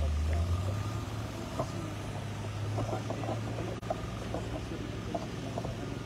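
An engine running steadily with a low hum that steps up in pitch about half a second in, then holds.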